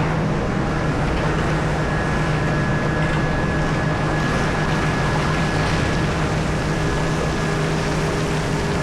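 Heavy diesel mining machinery running steadily, a constant low engine drone with a faint high whine over it.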